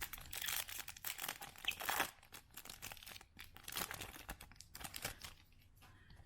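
Crinkling and rustling of a foil card-pack wrapper and slick chrome trading cards being handled, in irregular bursts that die away about five and a half seconds in.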